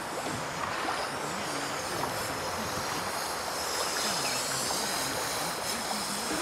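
Steady rushing wind noise.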